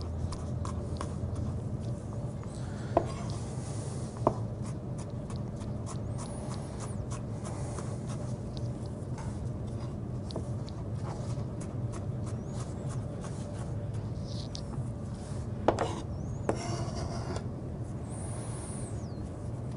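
Chef's knife chopping and mincing garlic on a wooden cutting board: many light, quick knocks of the blade on the board, with a few louder knocks, over a steady low hum.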